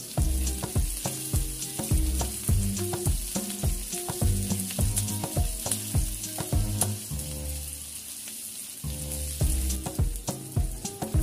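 Sliced onions sizzling in hot oil in a stainless steel wok, with a metal spatula scraping and knocking against the pan several times a second. The stirring eases off for a moment about two-thirds of the way through, then picks up again.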